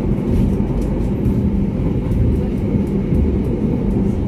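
Steady rumble of a moving train heard from inside a passenger coach: wheels running on the rails, with a low drone throughout.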